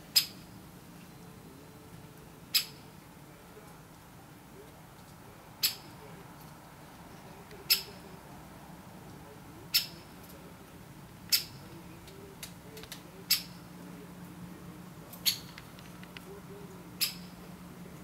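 Dendrocopos woodpecker giving sharp single 'kik' calls, nine in all, roughly one every two seconds.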